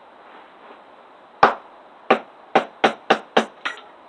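A small multi-tool hatchet striking into a piece of firewood to split it: one heavy blow about a second and a half in, then a quick run of six sharper strikes at nearly four a second.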